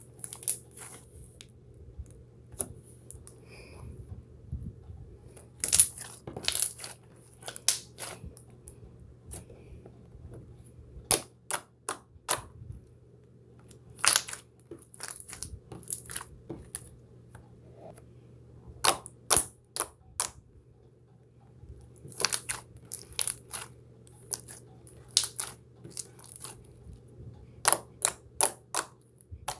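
Slime squeezed and poked between fingers, giving irregular sharp clicking pops that come in clusters with short pauses between them.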